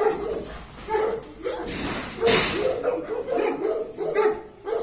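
Dogs whining and yipping through a kennel fence in a string of short, pitch-bending calls, with one brief rush of noise a little after two seconds in.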